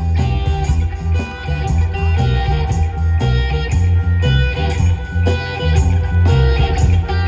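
Live band playing an instrumental passage: a plucked guitar line over drums and a heavy, pulsing bass, amplified through a stage sound system.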